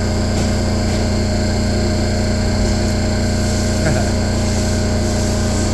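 Steady drone of machinery running in a machine shop, a constant hum with several fixed tones that holds level throughout.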